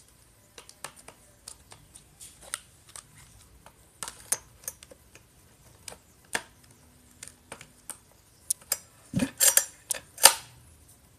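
Recoil starter housing being fitted onto a type 58 chainsaw: irregular sharp plastic clicks and taps, with a louder rattling clatter near the end.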